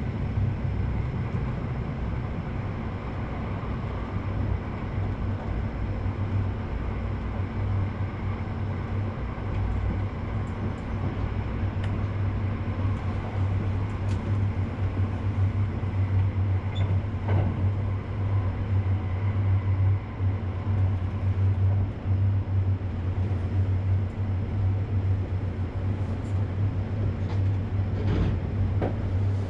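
Steady train noise: a low hum under an even rumble, with a few faint clicks.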